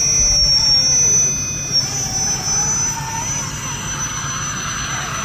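High-pitched steady electric whine from a radio-controlled crawler truck's motor and drivetrain, fading out about three seconds in, over a low rumbling noise.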